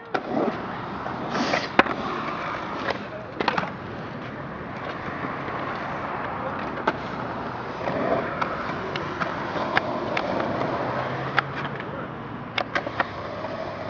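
Skateboard being handled while its quick-release wheels are taken off: a scattered series of short clicks and knocks at irregular intervals over a steady background hiss.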